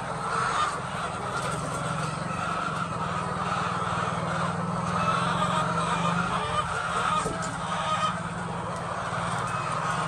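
A large flock of white laying hens clucking and calling in a continuous din, with a steady low hum underneath.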